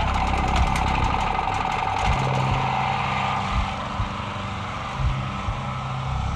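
Steady low engine-like rumble with a fast even pulse. A higher hum runs over it and fades out about three and a half seconds in.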